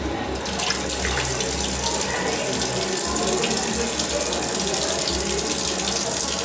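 A steady stream of urine splashing into the water of a toilet bowl, starting abruptly about a third of a second in.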